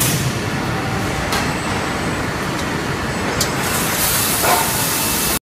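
Steady machinery noise from an automatic hot-forging line, with a robot arm loading a press, and a few faint clicks. It cuts off suddenly near the end.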